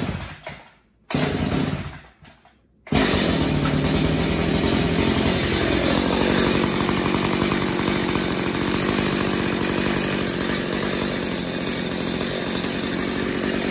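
Echo CS5000 two-stroke chainsaw being pull-started. A couple of short bursts come from the starter pulls, then it catches about three seconds in and keeps running steadily, its revs dipping a little soon after it fires. It runs on a freshly rebuilt carburetor set to its baseline screw settings.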